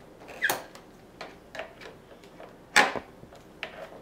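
Scissors snipping and clicking at plastic toy packaging: two loud sharp snaps, about half a second in and near three seconds, among lighter clicks.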